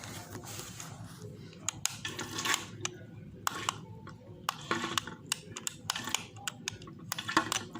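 Irregular light clicks and clatters of a small homemade boat model being handled, over a faint steady low hum.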